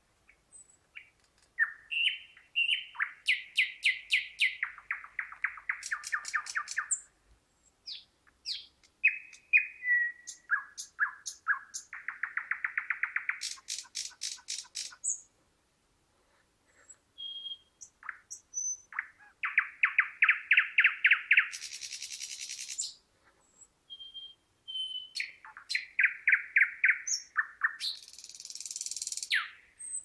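Thrush nightingale singing: four song phrases, each built of rapid series of repeated notes, clicking and rattling, with a high buzzy run at the end of two of them and short pauses between the phrases.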